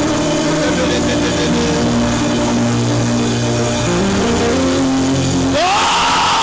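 Intro music: held synthesizer chords shifting from one to the next. About five and a half seconds in they give way to a rising whooshing sweep that leads into loud rock-style music.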